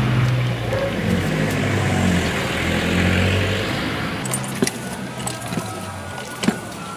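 An engine running with a low, wavering hum that fades away about four seconds in. A few sharp clicks and knocks follow.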